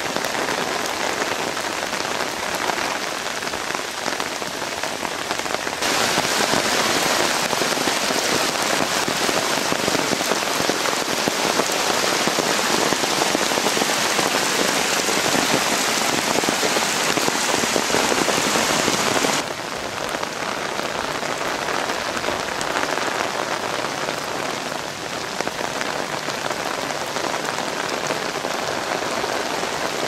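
Steady rain falling on wet ground. It steps up in level about six seconds in and drops back about nineteen seconds in.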